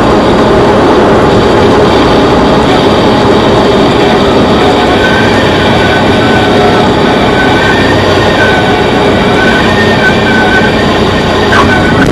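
Single-engine light airplane's engine and propeller running steadily at reduced power, heard loud from inside the cockpit during the landing. A faint high tone comes and goes from about five seconds in, and there is a brief knock near the end.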